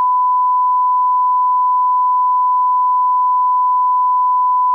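Television line-up test tone, the 1 kHz reference tone that goes with colour bars: one unbroken, steady pitch that cuts off suddenly near the end.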